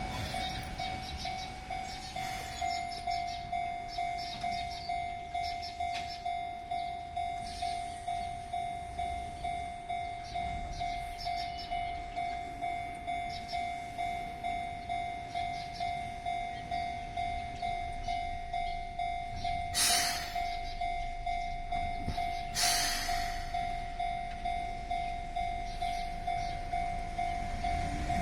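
Japanese level-crossing warning bell ringing steadily at just under two strikes a second, over a low rumble of the approaching Keihan 600 series train. Two short hissing bursts come about two-thirds of the way through.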